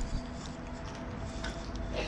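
Steady background music with a few faint clicks and taps over it.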